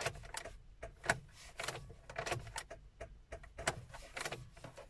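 Irregular dry clicks, a few a second, from the ignition and starter circuit of a 2020 UAZ Patriot as the key is turned, with no engine cranking: the car will not start, which the owner puts down to a flat battery.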